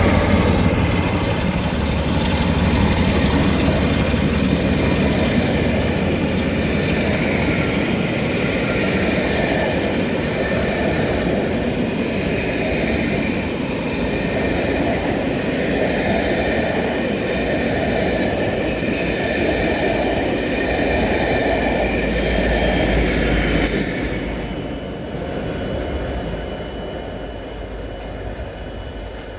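A locomotive-hauled train, class 47 47709 with class 57 57311, rolling past, its carriage wheels rumbling with steady high squealing tones. It is loud until about 24 seconds in, then falls away quickly and fades as the train moves off.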